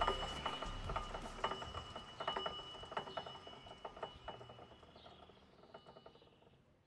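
Homemade lathe spindle running on tapered roller bearings, turned by a V-belt pulley, with rapid, irregular ticking over a steady high whine. The sound dies away toward the end.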